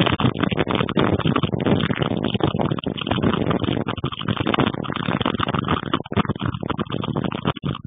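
Strong gusty storm wind blowing across the microphone, a dense rushing noise that rises and falls rapidly with the gusts.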